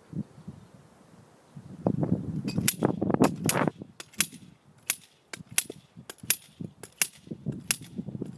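Tacit Shole golf hole cutter being worked into the turf of a green. Low scraping thuds give way to a regular run of sharp metallic clanks, about one every 0.7 s.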